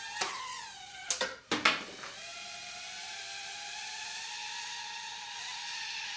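Sky Viper nano quadcopter's tiny motors and propellers whining steadily in flight. About a second in comes a cluster of sharp knocks, with the whine briefly dropping out and its pitch wavering before it steadies again.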